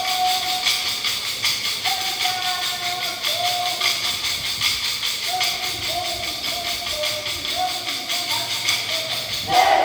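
Kolkali dancers' wooden sticks clacking together in a fast, steady rhythm, with a sung melody of held notes over it, growing louder near the end.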